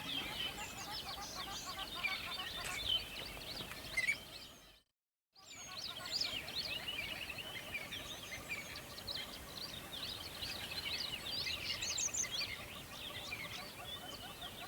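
Dense chorus of many small birds chirping and twittering over a steady background wash, cut by a brief gap of total silence about five seconds in.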